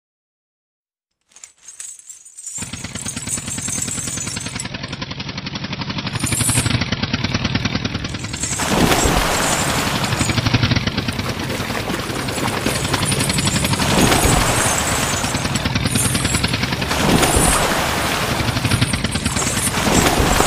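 Tractor engine running with a rapid, even chugging. It fades in after a moment of silence, grows louder about eight seconds in, and swells every few seconds as if under load.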